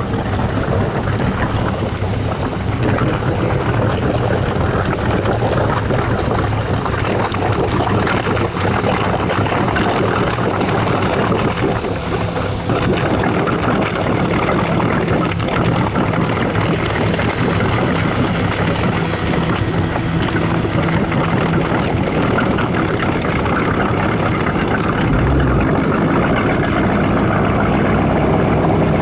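1974 Century Ski Fury's 454 cubic-inch V8 running at low speed. It gets louder and heavier near the end as the throttle opens.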